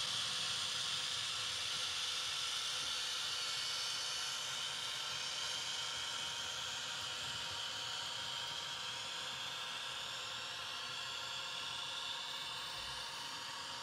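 H0-scale PIKO BR 612 Regioswinger model railcar running slowly with its ESU LokPilot V4 sound decoder on. It gives a steady, hissy, high whine through its small speaker, which slowly fades and drops a little in pitch as the model moves away.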